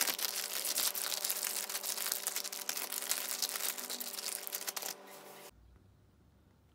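Zip-top plastic bag crinkling as it is shaken and kneaded, mixing strips of tuna in a soy-sauce marinade. The crinkling cuts off suddenly near the end, leaving faint room tone.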